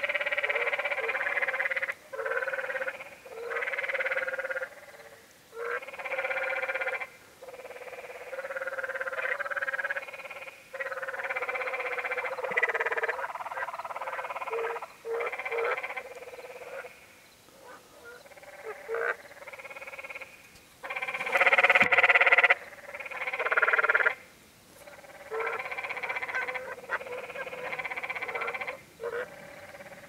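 Canyon tree frogs calling in repeated bursts of one to two seconds, one after another with short gaps between them, loudest a little past the middle.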